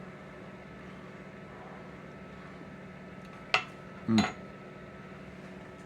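A spoon or bowl clinking twice on kitchen dishes, a little past halfway, over a steady low hum.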